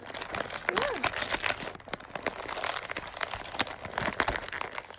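Christmas wrapping paper crinkling and crackling continuously as a guinea pig and a person's hand pull at a wrapped present.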